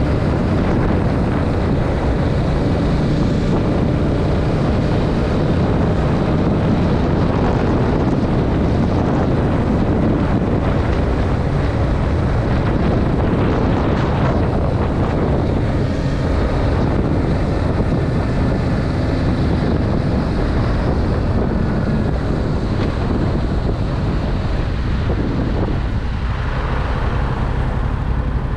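2021 Yamaha MT-07's parallel-twin engine running through its stock exhaust while riding, with heavy wind noise on the microphone.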